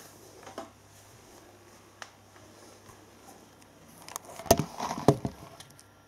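Hoover Dynamic Next washing machine in the rinse of its wool and silk cycle: the drum turns slowly and wet laundry sloshes and thuds in the rinse water, over a low steady hum. The loudest part is a cluster of knocks and splashes about four and a half seconds in.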